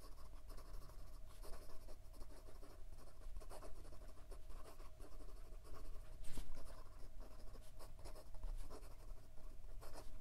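Broad fountain pen nib scratching across lined notebook paper in quick cursive handwriting, a run of short irregular strokes with one louder stroke about six seconds in. The nib is writing wet and without skipping.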